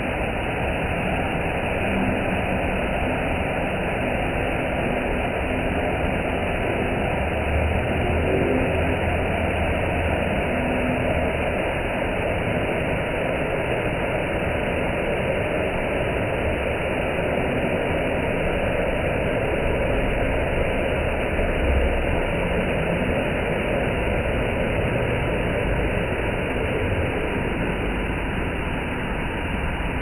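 Waterfall rushing steadily as the water pours onto rocks.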